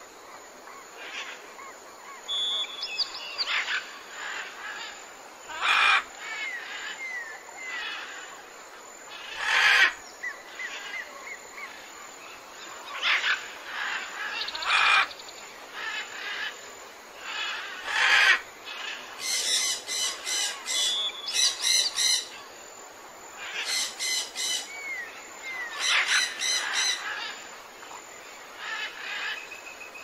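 Several birds calling: short whistled chirps that bend up and down, a sharp loud call every few seconds, and two runs of rapid repeated calls in the second half.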